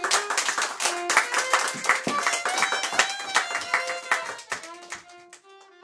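Audience applauding, a dense patter of claps that thins out in the last second, while a solo violin keeps playing sustained notes underneath.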